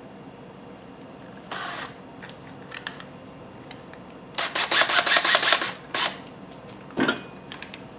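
Cordless drill-driver driving screws into a plastic mounting plate in short bursts, with a dense run of rapid clicks lasting about a second and a half midway through.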